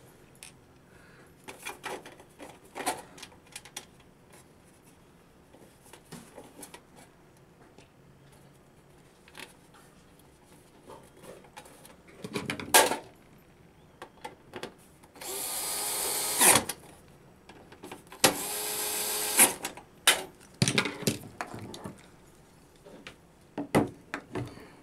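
A DeWalt cordless screwdriver runs twice, each run about a second and a half, driving the screws that hold the aluminium reflector shroud in the wall pack housing. Around it come clinks and knocks of the sheet-metal shroud being handled and seated, the loudest a sharp knock about halfway through.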